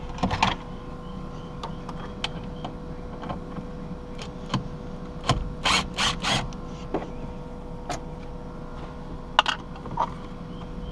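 Handling noise of a cordless drill and hands working at a car's dashboard around the factory radio's mounting screws: scattered light clicks and knocks. A cluster of three short, sharp bursts comes about six seconds in, and two more come near the end.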